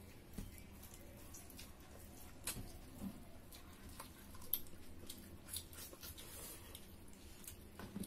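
Eating sounds from people eating pork curry and rice by hand: scattered short lip smacks and chewing clicks, with soft squishes of fingers working food on plates. The sharpest smack comes about halfway through.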